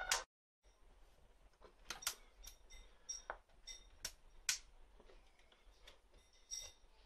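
Circuit-bent Casio SK-1 sampling keyboard played sparsely, giving faint scattered clicks and clinks, about seven at irregular spacing, each with a short bright ring.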